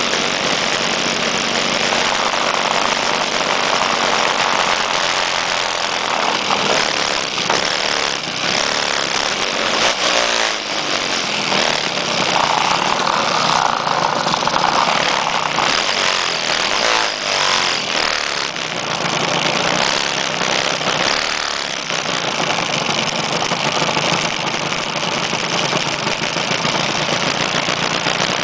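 A group of vintage Vespa scooters' small two-stroke engines running close by, idling together with the engine note rising and falling a couple of times, about ten and seventeen seconds in, as throttles are blipped.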